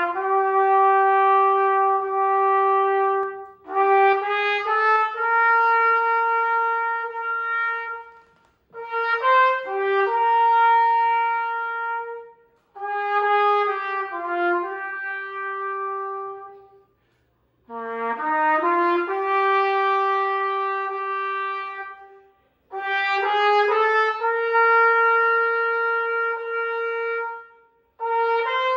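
Solo silver-plated Yamaha YTR-4335G B-flat trumpet with a Weril 3 VW mouthpiece, playing a slow hymn melody. It plays in phrases of long held notes, with brief breath pauses about every four to five seconds.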